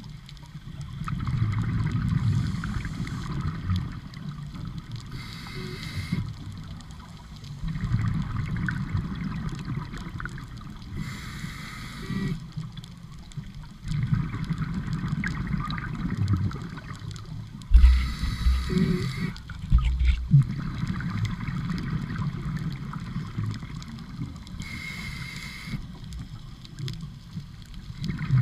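Scuba regulator breathing underwater: a short hiss on each inhale, then a long, low bubbling rush of exhaled air, repeating every six or seven seconds. A few low thumps fall near the middle.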